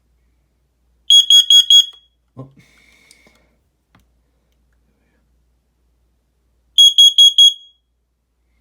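Smoke alarm sounding on its test button: two quick runs of four or five loud, shrill beeps at one high pitch, about six seconds apart.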